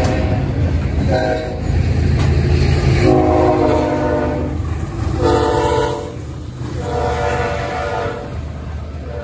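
Freight cars rolling past with a steady low rumble, while a train horn sounds in several separate blasts of about half a second to a second and a half each.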